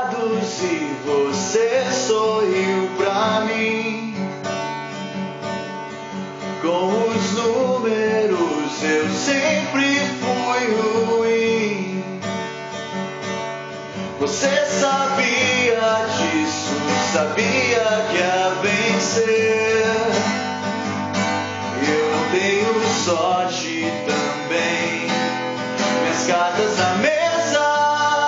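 Acoustic guitar strummed steadily with a man singing over it in phrases. The voice drops out briefly a few times between lines.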